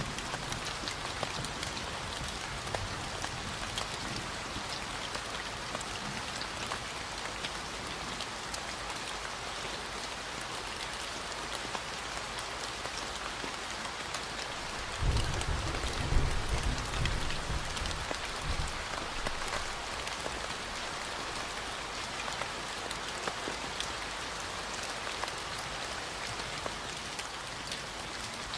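Steady rain falling on a surface, an even hiss of many drops. A low rumble rises about halfway through and lasts a few seconds.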